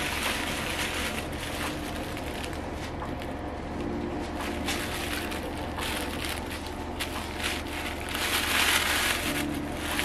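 Plastic packaging rustling and crinkling as a wig is taken out of its bag, with a louder stretch of rustling near the end.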